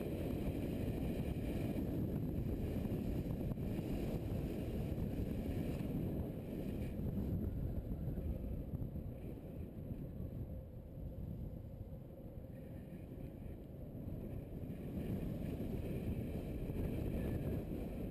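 A GS adventure motorcycle riding along, its engine and tyres making a steady low rumble under wind rushing over the microphone. The sound eases for a few seconds around the middle, then builds again.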